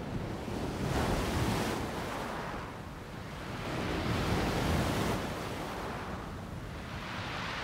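Ocean surf: waves breaking and washing up the shore, the rush swelling and falling back about every three seconds.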